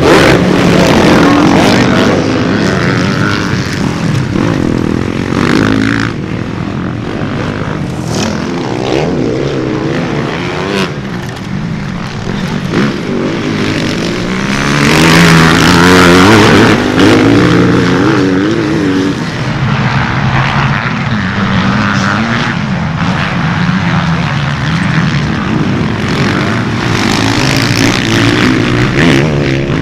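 Several motocross bike engines running hard and revving, the pitch rising and falling as riders accelerate and pass. The loudest pass comes about halfway through.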